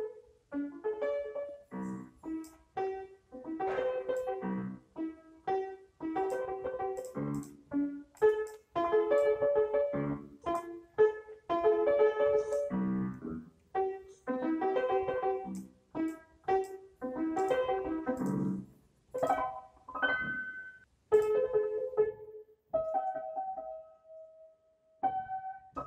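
Background piano music: chords and melody notes played in short phrases with brief pauses between them.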